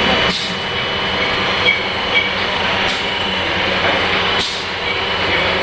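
Steady mechanical running noise of a twin-spindle CNC vertical turning lathe, with faint steady whining tones over it. Short sharp noises cut in three times.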